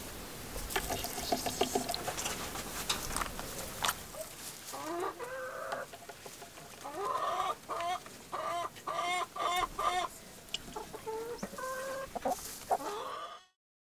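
Hens clucking in a string of short rising calls through the second half, after a few seconds of sharp taps from beaks pecking at the plastic watering cups. The sound cuts off suddenly near the end.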